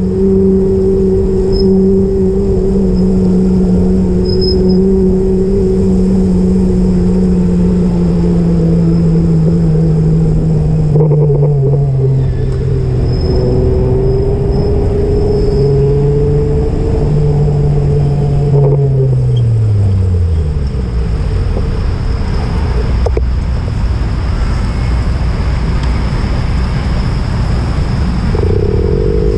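A vehicle's motor humming over steady road noise. Its pitch sinks gradually as it slows, then drops steeply about two-thirds of the way through. A new higher hum starts just before the end.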